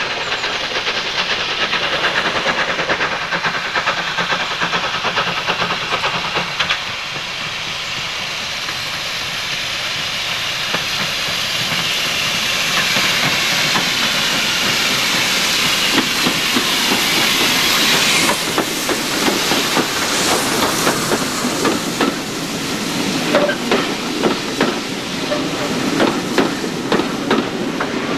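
A steam train double-headed by two locomotives approaches with a steady hiss of steam that grows louder. In the last few seconds its coaches roll past with the wheels clicking over the rail joints in a regular rhythm.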